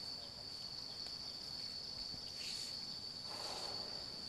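Steady, unbroken high-pitched drone of insects, with a soft rustle of hammock cord being handled a little after three seconds in.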